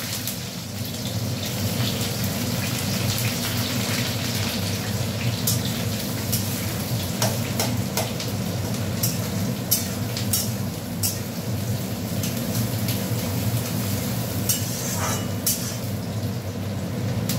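Sliced onions frying in hot oil in a pan: a steady sizzle with scattered sharp crackles and clicks, over a steady low rumble.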